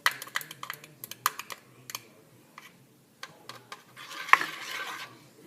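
Light clicks and taps of a plastic container and board being handled on a counter, then a stretch of soft scraping and rustling with one sharp tap about four seconds in.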